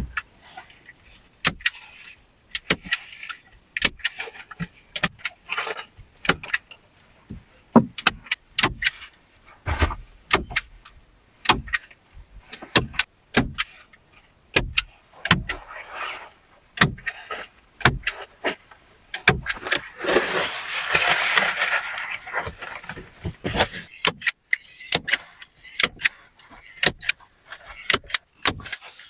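Irregular sharp knocks and clicks of hands-on building work, at times several a second, with a stretch of scraping rustle about twenty seconds in.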